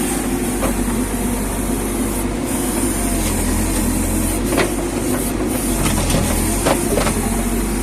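JCB backhoe loader's diesel engine running steadily while it works, with a few sharp knocks and clanks from the machine about halfway through and near the end.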